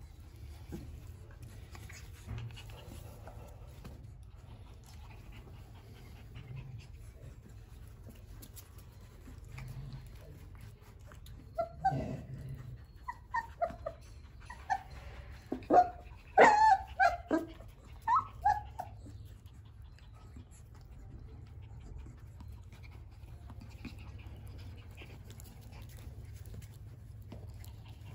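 Young puppies yipping and whimpering in a burst of short, high, quickly bending calls about halfway through, over a steady low hum.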